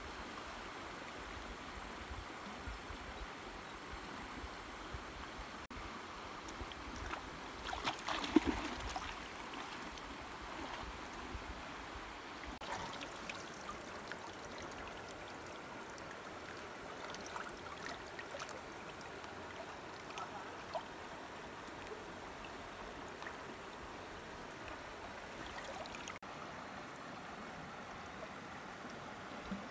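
Steady rushing of a flowing river. A short, louder burst of noise comes about eight seconds in.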